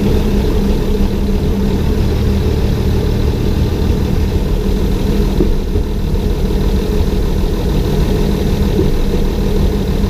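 Railbus diesel engine running steadily as the railcar travels along the track, a low, even drone with no change in pace.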